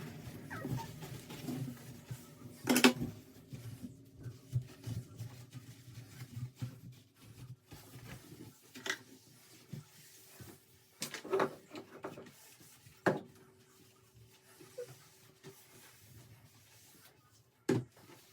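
Scattered knocks and clatters of kitchen items being handled and set down, with cupboard or drawer sounds. The loudest knock comes about three seconds in, over a faint steady hum.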